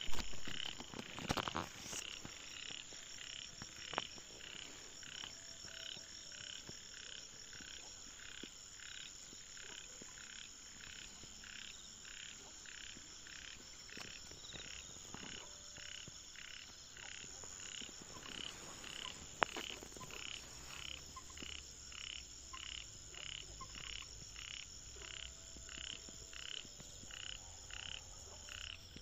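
Frogs calling at night in a field, one call repeating steadily about twice a second, over a steady high-pitched hum. A few sharp clicks near the start and about two-thirds of the way in.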